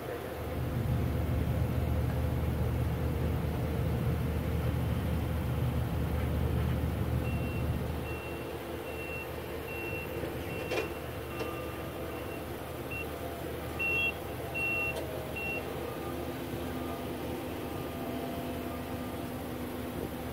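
Vehicle reversing alarm beeping at one high pitch, about twice a second, from about seven seconds in to about fifteen seconds, with a short gap in the middle. Before it, a low rumble drops away about eight seconds in.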